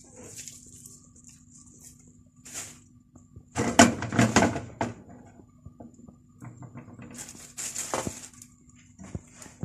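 Kitchen handling noises at a gas stove while kunafa batter cooks in a nonstick pan. Two bursts of rustling and clatter, about four seconds in and again around eight seconds, over a faint steady hiss, with a few small clicks.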